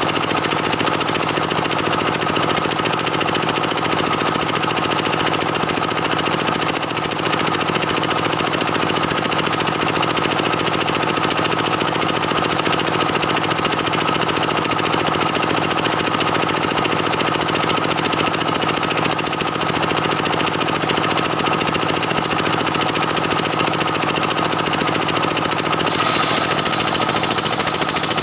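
Stihl 070 two-stroke chainsaw running steadily under load, ripping lengthwise through a beam of dense jackfruit wood. Its sound turns brighter near the end.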